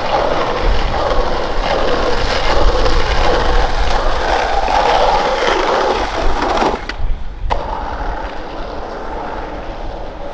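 Skateboard wheels rolling loudly over rough concrete. About seven seconds in the rolling drops away for a moment, then a single sharp knock, and quieter rolling resumes.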